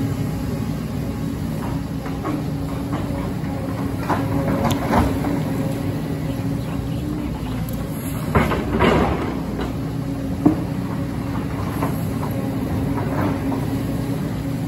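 JCB tracked excavator's diesel engine running steadily under load, with the bucket scraping and knocking against rock and soil: a few knocks early in the middle, a louder burst of scraping a little past halfway, and a single sharp clank shortly after.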